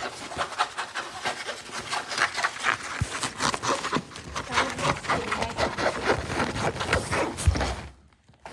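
Long-haired cat grooming itself right at the microphone: a quick, irregular run of rasping tongue licks on fur, with fur rubbing against the mic. It stops shortly before the end.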